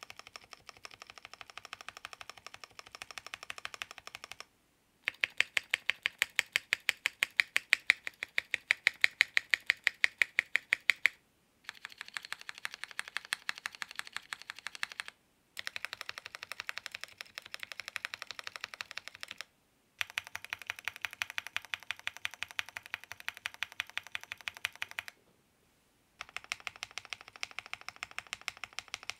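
Fast, steady typing on a mechanical keyboard fitted with Ceptify linear switches, in six runs of several seconds each with brief pauses between them. Each run differs in loudness and tone as the typing moves between stock and lubed switches, the run a few seconds in being the loudest.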